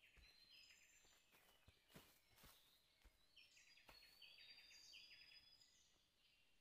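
Faint forest ambience: repeated short chirping calls with a few higher whistles from wild animals, and a few soft crunches of footsteps on dry leaf litter.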